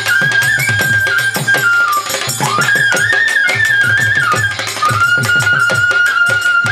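Bengali folk-music instrumental interlude: a single lead melody with slides and turns over a quick, steady drum beat.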